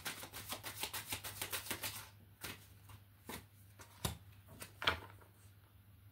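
A deck of oracle cards being shuffled by hand: a quick run of soft card clicks for about two seconds, then four separate taps about a second apart as cards are drawn and laid on the table.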